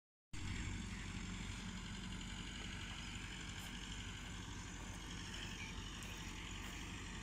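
Massey Ferguson 385 tractor's four-cylinder diesel engine running steadily under load while pulling a laser land-levelling scraper.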